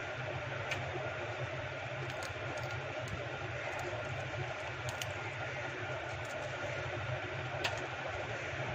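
Steady background hum and hiss with a few faint, sharp clicks spread through it.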